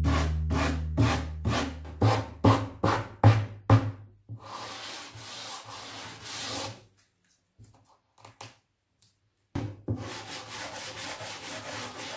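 Sanding or rubbing on wood: regular back-and-forth strokes fading out, then a steady stretch of rubbing. After a short pause with a few light knocks, the rubbing strokes resume near the end. Background music dies away in the first seconds.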